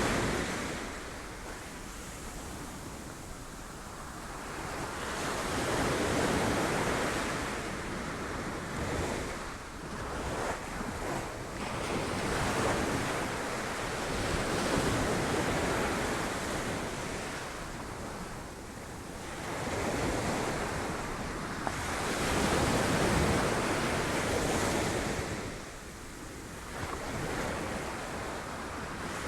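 Sea waves breaking on rocks, the surf swelling and ebbing in slow surges every few seconds, with wind on the microphone.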